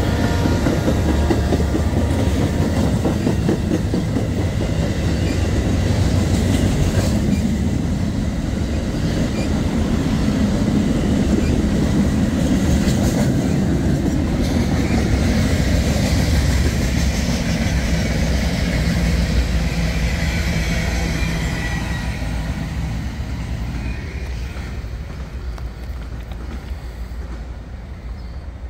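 Train passing close by, a dense steady rumble of wheels on rails that fades away over the last few seconds as it moves off.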